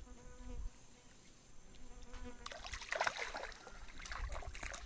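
A hooked pacu thrashing and splashing at the river surface as it is reeled in toward the boat, a run of splashes in the second half. Before the splashing, a steady buzz.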